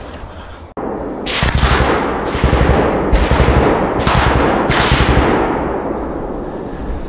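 Automatic gunfire: five short bursts of rapid shots about a second apart, then a long echo dying away.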